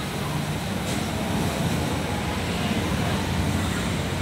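A motor running steadily with a low, even rumble.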